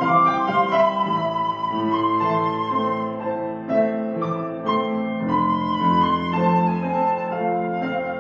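Johannes Hammig cocus-wood flute playing a melody of held notes over a Bösendorfer grand piano accompaniment, a flute and piano duet in classical style. The piano's lower notes grow stronger about five seconds in.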